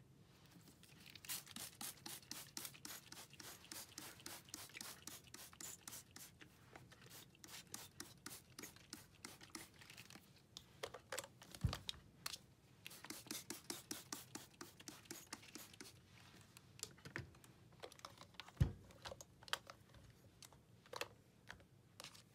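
A hand-pumped trigger spray bottle of disinfectant sprayed over a vinyl doll in quick repeated squirts, about three a second, in two long runs, with two dull knocks in between.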